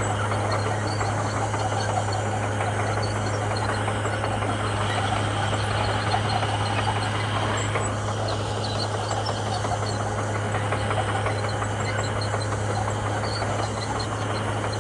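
Komatsu bulldozer's diesel engine running steadily, with a constant low drone under dense mechanical noise.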